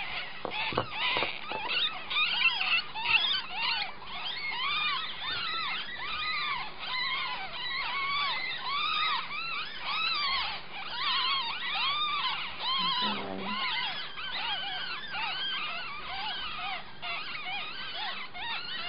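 Nine-day-old ferret kits squeaking continually: many short rising-and-falling squeaks, several kits calling over one another.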